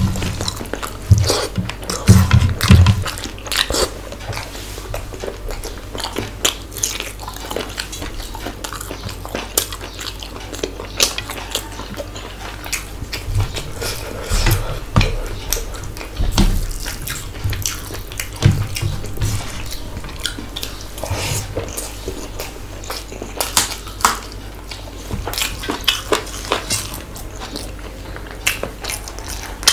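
Close-miked eating sounds: wet chewing, lip smacks and squelching as spicy fish curry and chicken pulao are mixed and eaten by hand, in an irregular run of soft clicks, with a few dull thumps in the first few seconds.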